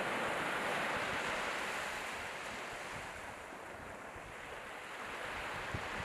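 Small waves breaking and washing up onto a sandy beach: a steady rush of surf that eases off about midway and swells again near the end.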